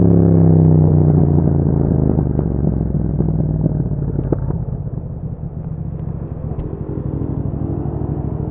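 Yamaha MT-07's parallel-twin engine through an Akrapovic exhaust, its pitch falling over the first couple of seconds as the bike rolls off the throttle, then running on as a lower, steady rumble that grows quieter about halfway through.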